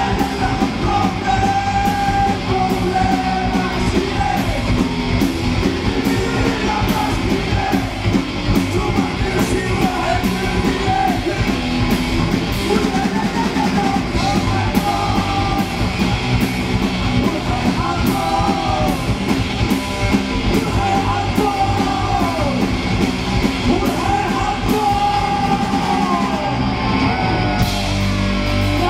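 Live rock band playing with drums, electric guitars and a male lead singer singing into a microphone over a steady beat.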